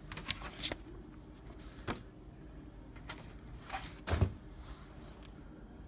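A stack of printer paper handled and lifted from a copier tray: a few brief rustles and soft taps, with a duller thump about four seconds in.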